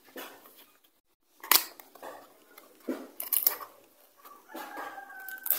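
Cardboard box being opened by hand: scattered rustles and scrapes of the flaps with a few sharp clicks, the loudest about one and a half seconds in.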